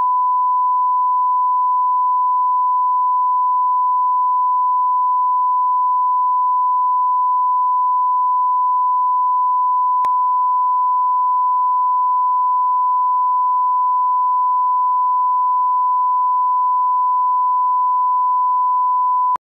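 Steady 1 kHz line-up reference tone accompanying SMPTE colour bars on a broadcast master, one unbroken pure tone at constant level that cuts off just before the end, with a faint click about ten seconds in.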